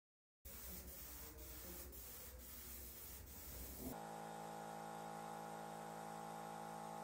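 Faint hiss with a low rumble and a few soft clicks, switching abruptly about four seconds in to a steady hum of several held tones over hiss.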